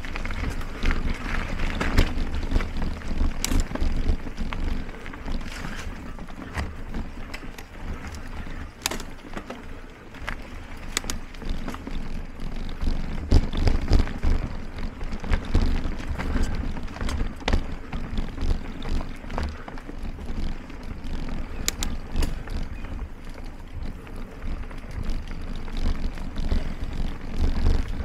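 Mountain bike rolling over a dirt and rooty trail: a steady low rumble of wind buffeting the microphone and tyres on dirt, with scattered sharp clicks and rattles from the bike jolting over bumps.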